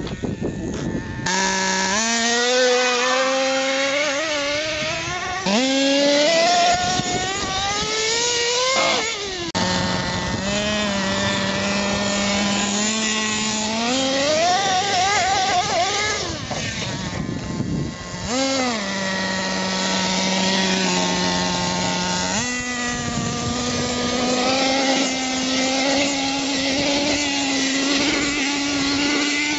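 Radio-controlled monster truck's motor running hard as the truck is driven over dirt, its pitch gliding up and down with the throttle and holding steady in between, with a few sudden jumps in pitch.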